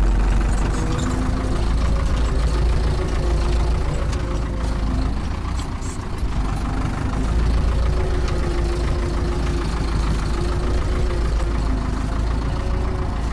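Ursus C-360 tractor's four-cylinder diesel engine running steadily under load, heard from inside the cab as it pulls a mounted plough deep through the soil. It is working hard but keeps pulling.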